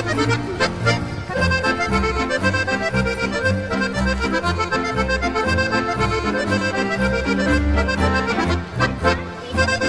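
Background music: a traditional tune led by accordion over a regularly repeating bass line.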